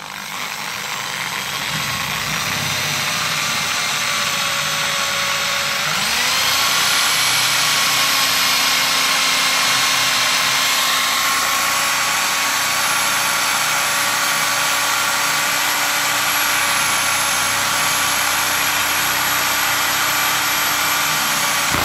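Corded electric drill boring into the end of a small wooden stick. The motor starts up, speeds up with a rising whine about six seconds in, runs steadily, and stops at the very end.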